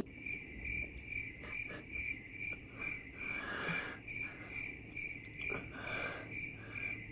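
Cricket chirping: a steady, evenly spaced high chirp about twice a second, with a few faint clicks beneath.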